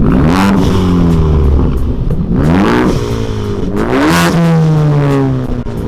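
Ford Focus ST's turbocharged 2.0-litre four-cylinder, straight-piped through an MBRP turbo-back exhaust, revved three times while parked, each rev rising sharply and falling back to idle. Loud.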